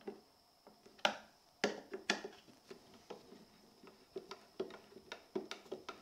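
Phillips screwdriver turned by hand, driving a screw into a 3D-printed plastic enclosure pillar: a run of irregular small clicks and ticks as the screw is snugged up, the loudest a little after a second and around two seconds in, over a faint steady high tone.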